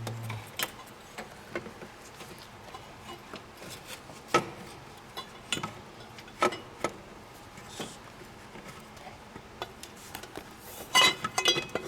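Scattered clicks and knocks of hand tools and plastic charge-air pipes being worked loose in a car's engine bay, with a quick run of metallic clinks near the end.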